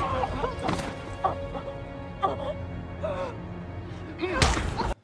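Film fight scene: a man and a woman struggling, with short grunts and pained cries over a steady music score. A heavy blow lands with a thud about four and a half seconds in, then the sound cuts off abruptly.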